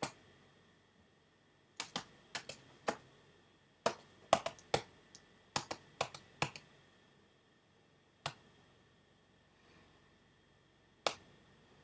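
A run of sharp, irregular clicks or taps, about fifteen in all, most of them bunched in the middle, then a single click near the end.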